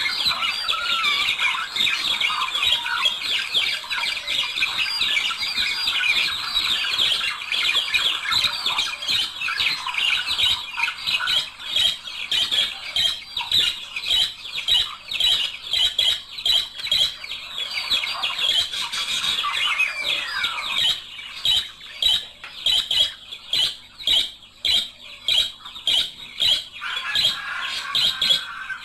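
A pair of budgerigars chattering and warbling in a dense, continuous stream of fast chirps. After about twenty seconds it breaks into sharper, separate chirps and squawks with short gaps between them.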